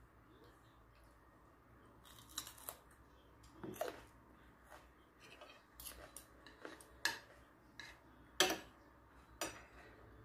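Metal fork and spoon clicking and scraping against a plate as food is cut and scooped, a scattering of short sharp clicks, the loudest two a little past the middle.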